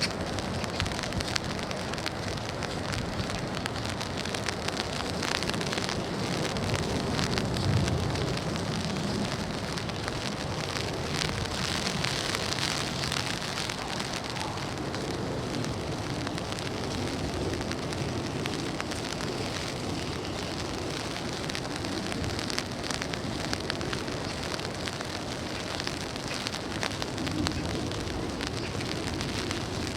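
Rain falling on an umbrella overhead: a steady dense patter with many individual drops ticking through it.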